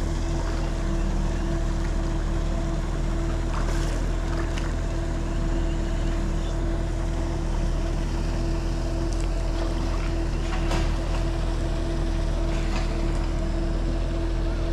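Steady mechanical motor drone with a constant hum and a deep rumble, unchanging throughout, with a few faint ticks over it.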